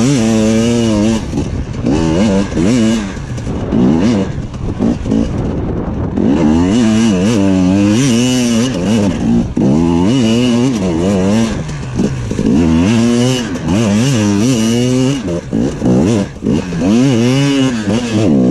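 Two-stroke engine of a KTM EXC 250 TPI enduro bike, heard from the rider's seat, revving up and down over and over as the throttle is worked on and off.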